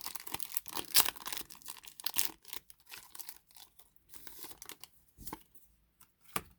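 Foil wrapper of a Pokémon Shining Fates booster pack being torn open and crinkled: a dense run of tearing and crackling for the first two seconds or so, then sparser crinkles and a few sharp clicks.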